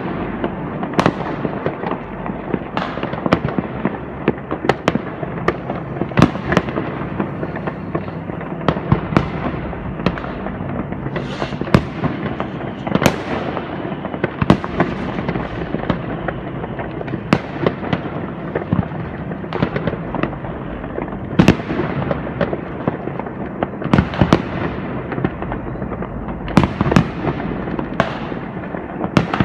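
New Year's Eve fireworks going off all around: a continuous crackle of firecrackers and rockets, with sharp bangs several times a second, some followed by a fading hiss, and no let-up.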